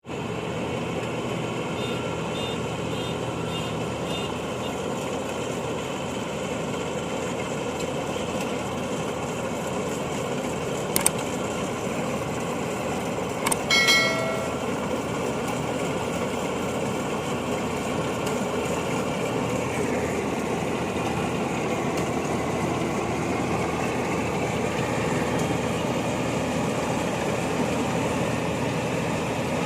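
INARI rice combine harvester's engine running steadily, with a sharp click about eleven seconds in and a brief high-pitched tone near fourteen seconds.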